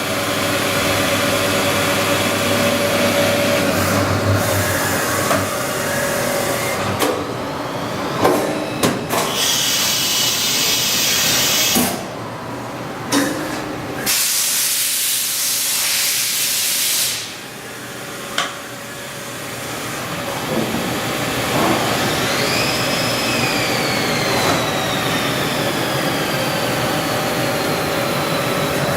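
Fadal 907-1 vertical machining center running, with a steady hum of several machine tones. Two bursts of loud hissing come about ten and fifteen seconds in. Near the end a whine rises briefly, then falls slowly.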